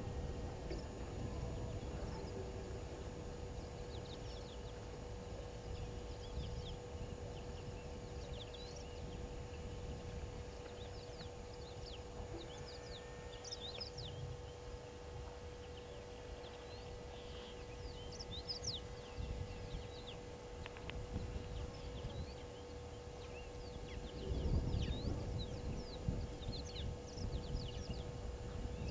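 Outdoor bush ambience: many short, high bird chirps scattered throughout, over a low wind rumble on the microphone that grows louder for a couple of seconds near the end, with a steady hum underneath.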